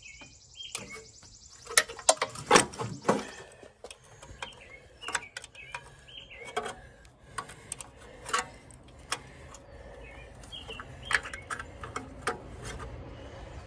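Hand wrench turning a small 3/8 bolt out of a Wisconsin engine's cooling shroud: irregular metallic clicks and clinks, loudest about two to three seconds in. Birds chirp now and then.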